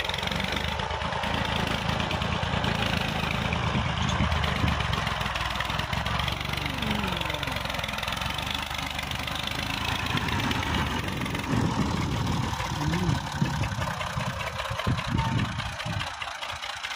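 Heavy diesel engine of a tractor or truck running steadily.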